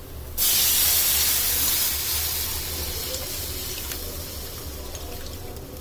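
Rasam liquid with tomato pieces poured into a hot oil tempering of mustard seeds, garlic and cumin in a wok: a sudden loud sizzle about half a second in, which slowly dies down.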